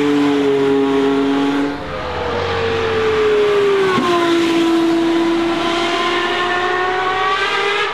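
A Mercedes-AMG One passes at high, steady revs. Then the naturally aspirated 4.0-litre V12 of a Gordon Murray T.50 drops in pitch and pulls hard again, its note rising steadily as it accelerates away.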